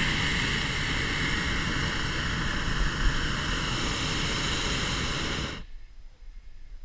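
Hot air balloon's propane burner firing in one long blast, a loud steady rushing hiss that cuts off suddenly a little over a second before the end.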